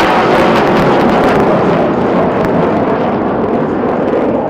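Jet noise from a BAE Hawk trainer of the Surya Kiran aerobatic team flying past low, loudest at the start and easing slightly as it moves away.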